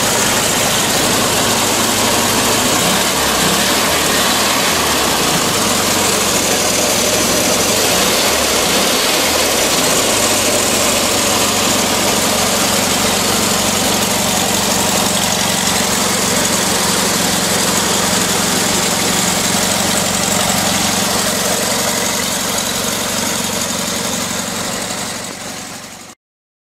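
1978 VW T2 Transporter's air-cooled 1.6 flat-four boxer engine idling after a morning cold start. The idle wavers a few seconds in, then settles, and the sound fades out and cuts off near the end.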